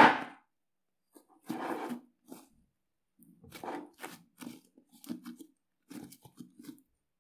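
Foamy blue slime, made with glue, foaming soap and shaving cream and just activated with borax glycerin, squelching and tearing in short bursts as hands knead and pull it apart. There are about half a dozen uneven bursts with brief pauses between them.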